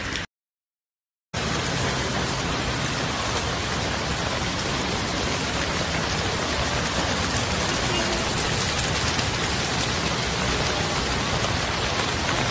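Torrential rain pouring down, a dense, steady hiss. It is broken by about a second of dead silence near the start where two clips are joined.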